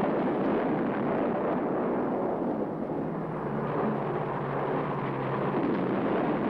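Continuous rumbling din of bombardment explosions, with no single blast standing out.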